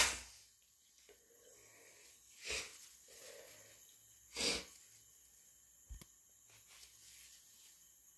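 A person sneezing from a cat allergy: the end of a loud sneeze right at the start, then two shorter, quieter sneezes about two seconds apart, with faint breaths in between. A small click about six seconds in.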